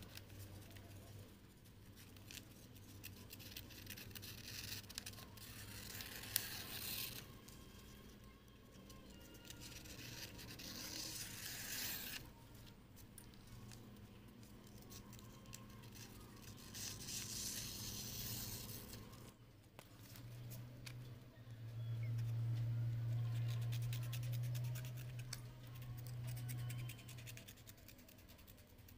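Paper being sliced with a homemade cutter made from a used razor blade, in three stretches of a few seconds each of dry, hissing scraping. A steady low hum comes in for several seconds in the second half.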